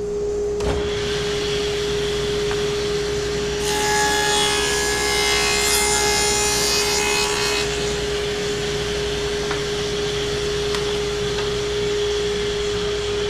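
Table saw running with a steady whine, then cutting through a plywood block for about four seconds starting around four seconds in, before going back to running free.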